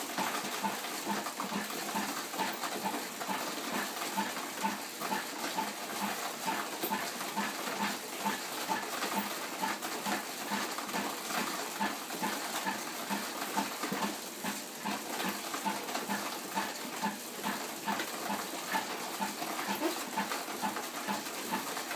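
Bicycle-driven table-top rice huller running as rice is fed in: a short pitched note repeats evenly two to three times a second over a steady hiss.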